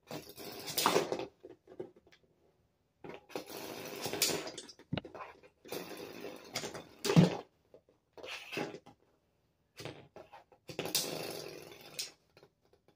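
Lego spinning tops being twist-launched by hand and spinning on a hard plastic surface, rattling and scraping in several separate bursts with short quiet gaps between.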